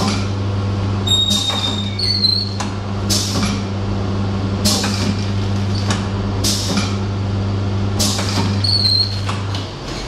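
Pneumatic form-fill-seal pouch packing machine running: a steady low hum under short hissing strokes that repeat about every second to second and a half as the pneumatic cylinders work the horizontal sealing jaws, with a few brief squeaks. The hum cuts off near the end.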